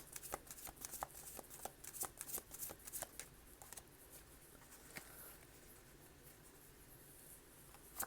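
Tarot cards being shuffled by hand: a quick run of soft card slaps and flicks for about three and a half seconds, then quiet apart from a single tap about five seconds in.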